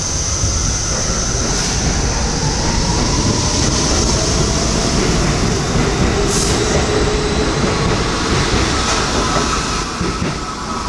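R68 New York subway train pulling out and passing close by, wheels running and clattering over the rails with a high squeal that dies away about halfway through. The sound fades near the end as the last car moves off down the track.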